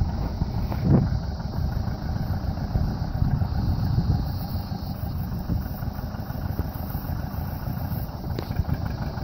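John Deere 720 two-cylinder diesel tractor engine running steadily while being broken in after a new head gasket.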